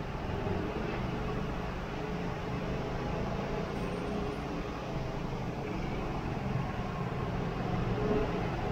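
Motorbike engine running steadily during a ride, with the hum of street traffic around it.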